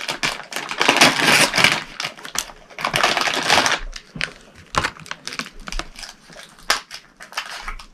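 Packaging of a small mystery bag being torn open and crinkled by hand. There are two longer stretches of rustling and ripping in the first four seconds, then scattered crackles and clicks as the wrapping is handled.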